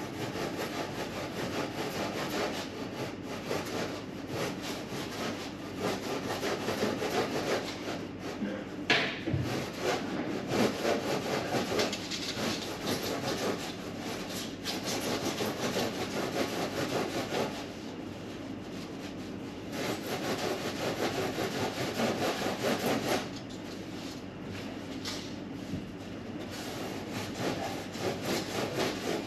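A hand tool scraping back and forth on building material in quick, continuous strokes, easing off for a few seconds about two-thirds of the way through.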